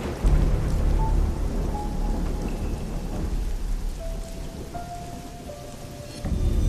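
Thunder rumbling over steady rain. The rumble swells about a quarter second in, dies down past the middle, and a new roll comes in near the end, with a few soft held music notes above it.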